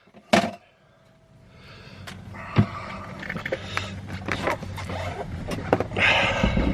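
A sharp clack as a hand tool is set down, then a few seconds of rustling, shuffling and small knocks.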